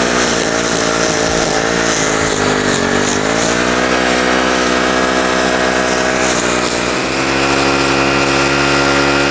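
Gas-powered string trimmer (weed eater) engine running while cutting. Its pitch sags twice in the first few seconds, then holds steady at a slightly higher pitch from about seven seconds in.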